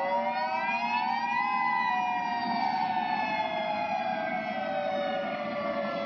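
Outdoor tornado warning sirens sounding, several at once, played back through computer speakers: the overlapping tones rise to a peak about a second and a half in, then slowly wind down.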